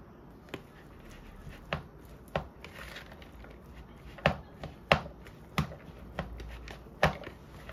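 White plastic rice paddle knocking and scraping against a clear plastic mixing bowl while stirring cooked rice with toppings. About eight sharp knocks, the loudest in the second half, with a soft swish of the paddle through the rice near the middle.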